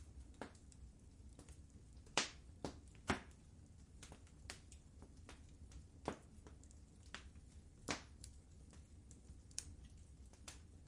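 Wood fire crackling: irregular sharp pops and snaps over a faint low rumble of burning, with the loudest cracks about two and three seconds in and another near eight seconds.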